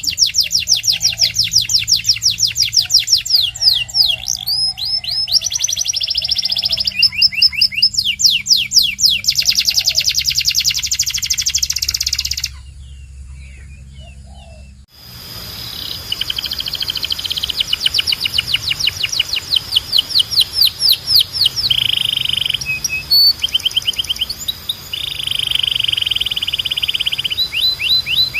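Domestic canary singing: fast trills of rapidly repeated down-sweeping notes alternating with buzzing rolls, breaking off for about two seconds midway before the song resumes. A low hum runs underneath.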